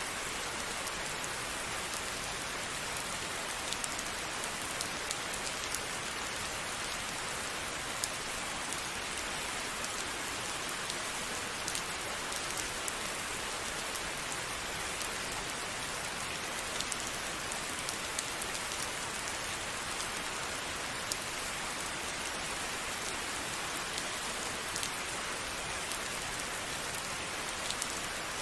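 Steady rain falling, an even hiss peppered with the sharp ticks of individual drops striking a surface.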